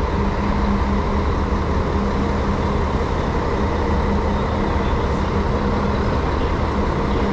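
Coach's diesel engine idling close by: a steady low drone with an even hum and no change in pitch.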